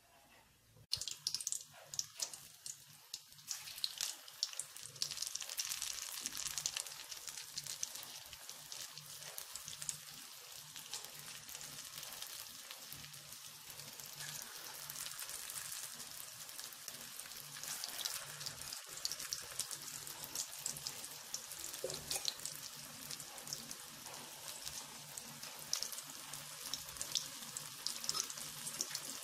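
Balls of urad dal batter deep-frying in hot oil: a steady sizzling hiss with dense crackling that starts suddenly about a second in.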